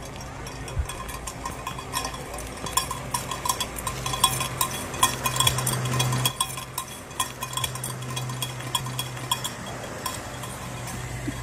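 Rapid, irregular metallic jingling and clinking, like a bell being shaken, loudest around the middle, over a steady low hum.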